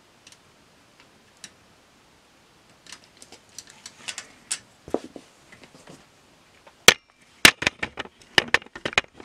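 Scattered clicks and light metal taps as VEX steel parts, a screw and a hex key are handled and a nut is fitted. Two sharp knocks come about seven seconds in, followed by a quick run of clicks.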